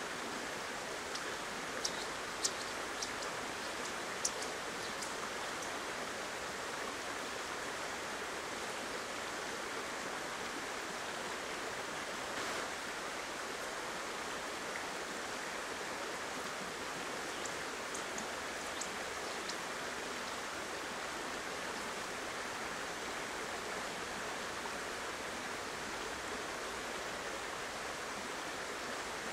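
Shallow rocky river running steadily, an even rush of water over stones, with a few faint high ticks in the first five seconds and again about eighteen seconds in.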